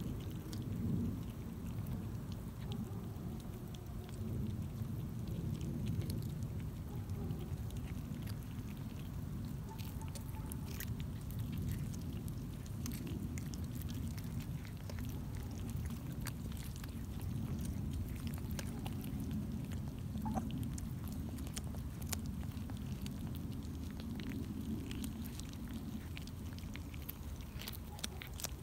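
Kittens eating, small chewing clicks scattered over a steady low rumble.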